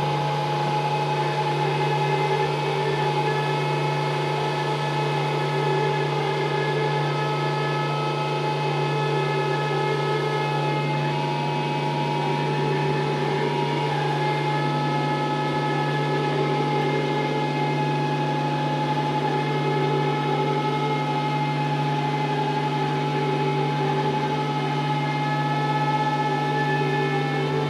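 Experimental drone music: layered sustained tones over a steady low hum, with a few of the higher tones shifting partway through.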